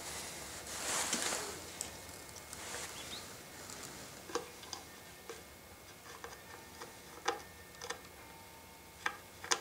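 Sparse small metal clicks and scrapes of screws being turned into a plywood router base, fastening it to the router, with a soft handling rustle about a second in and two sharper clicks close together near the end.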